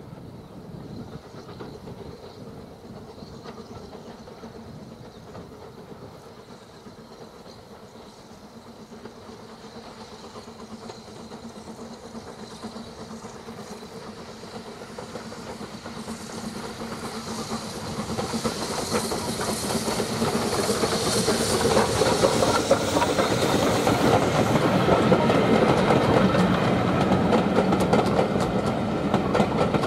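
Steam locomotive hauling a train of coaches, approaching and passing close by, its hiss and working sound growing steadily louder. Near the end the coaches' wheels clatter over the rail joints as they go past.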